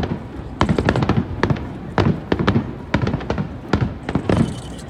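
Fireworks shells bursting over the harbour in rapid succession: a string of sharp bangs, about three or four a second, with a high hiss near the end.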